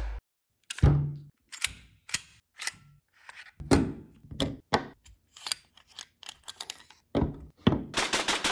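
EMG SAI Glock 17 gas blowback airsoft pistol being field-stripped by hand: a string of separate clicks and clacks from the slide and parts, with a quick run of sharp clacks near the end.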